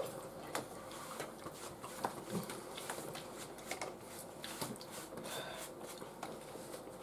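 Fork scraping and clinking against a metal baking tray lined with baking paper, and fingers picking through nachos and toppings: a run of small clicks, taps and rustles.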